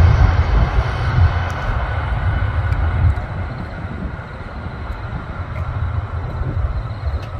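Jet engine noise from a JAL Airbus A350's Rolls-Royce Trent XWB engines as the airliner rolls down the runway away from the listener: a steady rush over a low rumble that fades after about three seconds.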